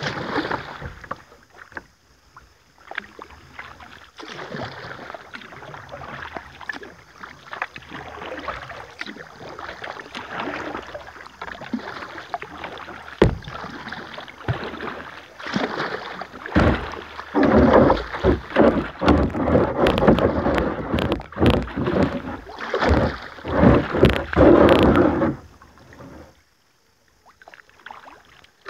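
Kayak paddling on a river: the paddle blades dip and splash in the water, with scattered knocks. The splashing is busiest and loudest in the second half, then falls away near the end.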